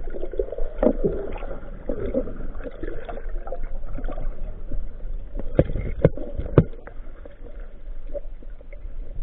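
Muffled water movement and gurgling heard through an underwater camera during a dive, with a few sharp knocks about halfway through.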